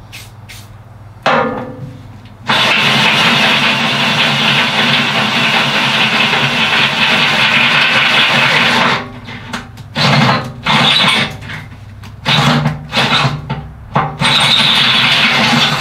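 Hand-held power drill boring into the steel of a tractor loader bucket, running steadily under load for about six seconds, then in short bursts with pauses between.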